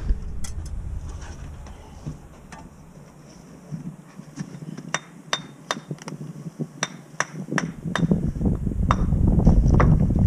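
Steel brick trowel tapping bricks down into their mortar bed: a run of about ten sharp clinks through the second half, with a low rumble building near the end.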